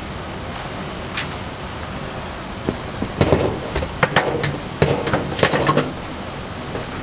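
Metal grill grate knocking, rattling and scraping against a steel fire-pit windbreak as it is set in place over the fire. There is a single click about a second in, then a run of clanks from about three to six seconds, over a steady background hiss.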